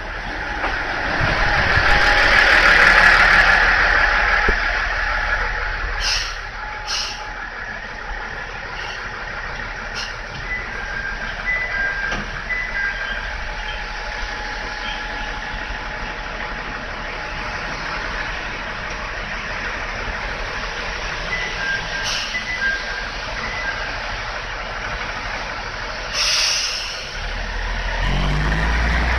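Tenryū Hamanako Railway diesel railcar standing at the platform with its engine running. Its air brakes let off a long hiss a couple of seconds in and several short sharp hisses after that. Near the end the engine's deep hum grows louder.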